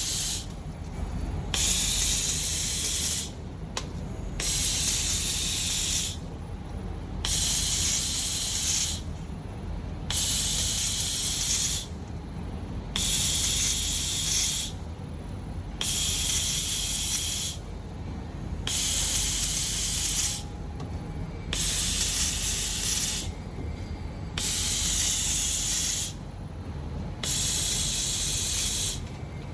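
Automatic laser welding robot laying a series of short welds: a hiss of about a second and a half, repeated about every three seconds, over a steady low machine hum.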